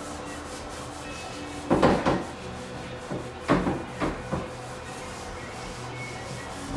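A few short scraping or rubbing strokes of handwork, in a cluster about two to four and a half seconds in, over a steady low hum.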